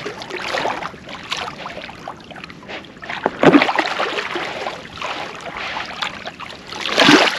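Water sloshing and splashing against the side of a boat as a large wels catfish is fought right at the boat, with a loud splash about three and a half seconds in and another near the end.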